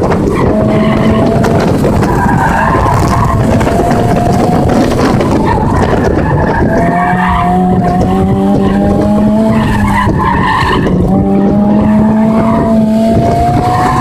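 Car engine held high in the revs, around 5,000 to 7,000 rpm, under hard acceleration and cornering, with tires squealing in long rising stretches through the turns over loud wind and road noise.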